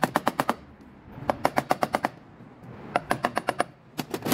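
Rapid hammer taps on a driver held against a spark plug tube seal in an aluminium valve cover, seating the seal. They come in about four quick bursts of six to eight sharp metallic strikes each.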